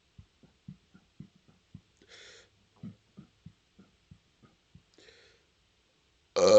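A man swallowing air in a quick run of soft gulps, about three a second, broken by two short breaths. Near the end a loud, long, pitched burp begins.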